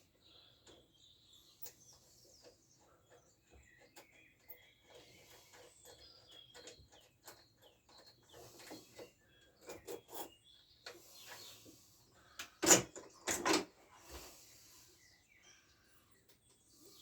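Hand tools and metal scooter parts being handled: scattered light clicks and knocks, with two louder knocks close together about three quarters of the way through.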